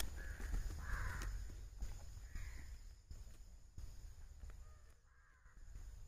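A bird calling a few times with short, harsh calls, over faint clicks and rustling of feathers being plucked by hand from a freshly killed quail.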